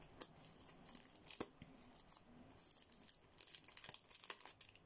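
Faint crinkling and rustling of plastic packaging and paper card as nail-art sticker sheets are handled, with scattered light clicks, thickest in the second half.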